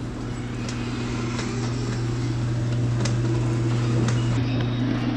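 Steady low electric hum from the QS138 electric motor of a converted dirt bike creeping forward at low speed. It holds one pitch and grows slowly louder, with a few faint ticks.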